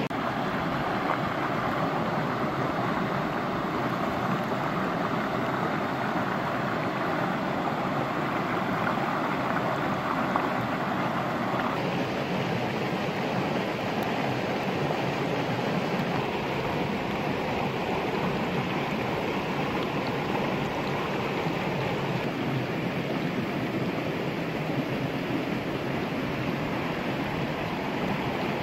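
Steady rush of a flowing stream, an even noise with no distinct events, changing in tone about twelve seconds in.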